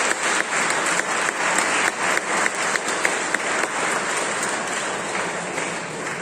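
Congregation applauding: dense clapping from many hands, tapering off towards the end.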